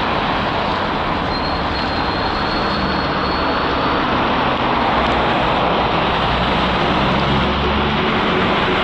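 Steady road traffic noise from vehicles passing on a wide city avenue, mostly tyre hiss, with a low engine rumble that grows louder from about halfway through.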